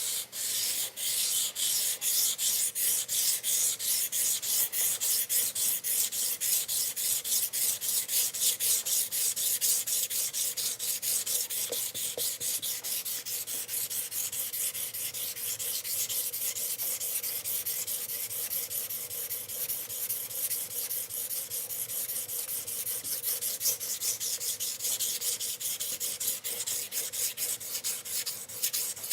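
A CPM-M4 steel knife edge being stroked rapidly back and forth on a wet 20 micron diamond sharpening plate: a steady, rhythmic scratching hiss of abrasion. The strokes grow a little softer in the second half.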